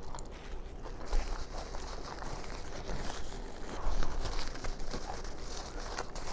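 Close-up chewing and wet lip smacking on a mouthful of cheeseburger: a stream of small clicks and squelches.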